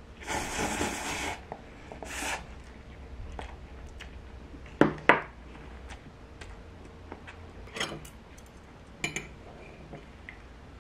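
Tableware handled while eating: a scraping noise about a second long at the start and a shorter one just after, then a few sharp clicks of chopsticks on a ceramic plate and cup, the loudest two in quick succession near the middle.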